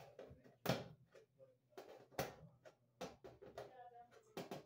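Hand tools working at the sheet-metal back of an electric range: a screwdriver and fingers making a string of irregular sharp clicks and knocks on the metal panel, the loudest about a second in.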